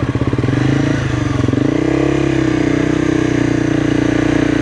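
Sport motorcycle engine heard from on the bike, pulling away: its pitch climbs about a second in, then holds steady as the bike rides on.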